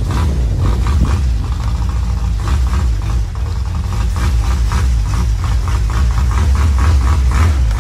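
Engine of a Thai long-tail canal boat running steadily under way, heard from aboard, with a fast, even pulsing.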